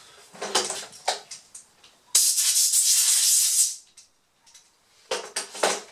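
A short blast of compressed air from an air compressor's blow gun, blowing dust out of a laptop's cooling heatsink. It is a loud, even hiss that starts suddenly about two seconds in and stops after about a second and a half.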